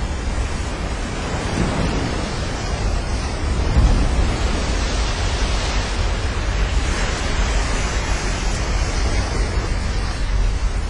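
Sea waves surging, with a rushing wash that swells in the middle and then eases. Wind buffets the microphone with a steady low rumble.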